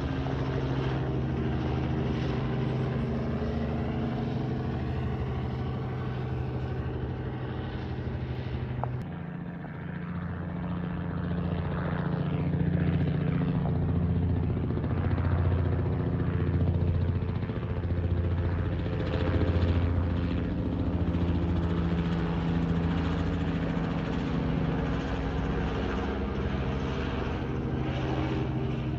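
Helicopter flying circles overhead: a continuous rotor beat and engine drone. The drone shifts down in pitch about nine seconds in and gets louder from about twelve seconds, swelling and easing as the helicopter circles.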